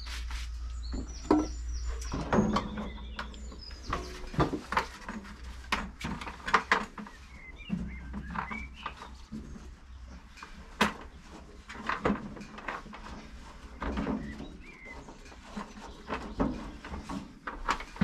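Irregular scraping, rustling and knocking of packed spruce sawdust being cleared by gloved hand out of a bandsaw sawmill's blade housing into a plastic bucket. The housing has clogged because the dust bucket was not emptied in time. Birds chirp faintly now and then.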